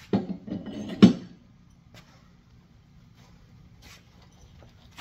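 Metal parts clattering as they are handled and set down on a workbench, with one sharp clank about a second in, then a few faint clicks.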